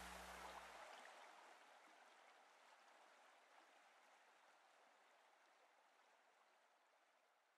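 The tail of the background music fading out to near silence; its low held notes stop about a second in, leaving a faint hiss that dies away.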